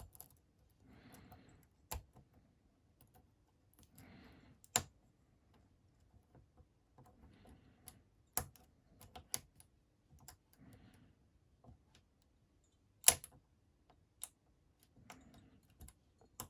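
Lock pick and tension wrench working the pins of a Master Lock 410 padlock: irregular sharp clicks, a few of them louder, with faint scraping of the pick against the pins between them.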